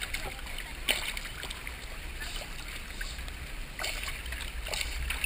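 Lake water lapping and splashing at a camera held at the surface beside a swimming dog, with sharper splashes about a second in and again near four seconds, over a steady low rumble.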